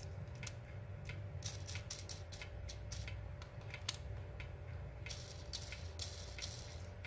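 Faint, irregular small metallic clicks and ticks, several a second, as a precision screwdriver turns a small screw in the red aluminium arm of an MK8 3D-printer extruder. A steady low hum runs underneath.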